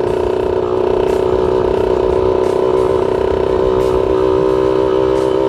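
Two-stroke single-cylinder engine of a Yamaha F1ZR motorcycle running under way at low speed, holding a steady note.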